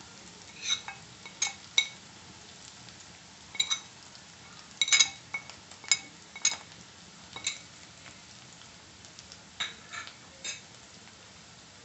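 Metal spoon clinking against a ceramic plate and the wok as spice powders are pushed off into the pan: about a dozen sharp, ringing clinks at irregular intervals, over a faint steady sizzle of onions frying in oil.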